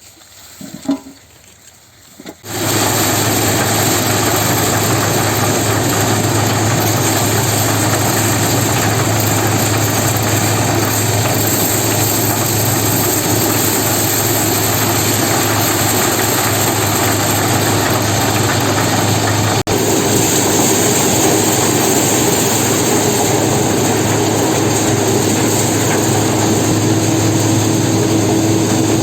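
Engine-driven corn threshing machine running steadily with a constant hum. It comes in suddenly about two and a half seconds in, and a higher steady hum joins a little past halfway.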